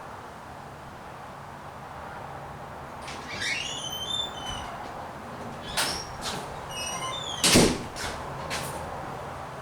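A door squeaking on its hinges, then banging shut with a few knocks, the loudest about two-thirds of the way in.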